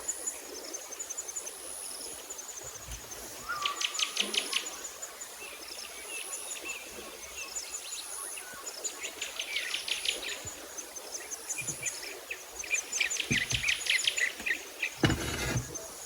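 Chirping wildlife: short, rapid trills of chirps repeated every couple of seconds, over a thin high steady buzz that comes and goes. A dull bump sounds near the end.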